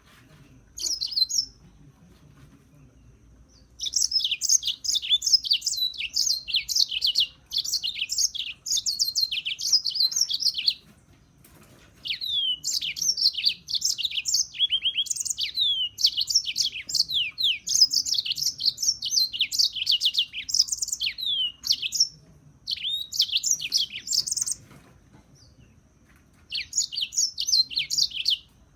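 Serin singing: long bouts of fast, high twittering song broken by short pauses, with a brief phrase about a second in.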